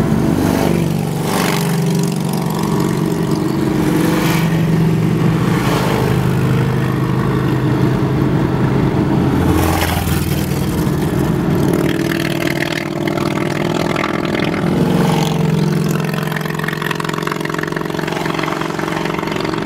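Harley-Davidson V-twin motorcycle engines running steadily at cruising speed. The engine note shifts in pitch a couple of times, and there are a few brief rushes of wind-like noise.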